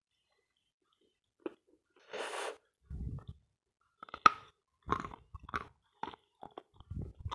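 A person bites into a lump of dense, dry "Sloyka" edible chalk with one sharp crunch about four seconds in, then chews it in a quick run of crisp crunches. Before the bite there is a short breathy hiss, and a couple of low thumps fall around the chewing.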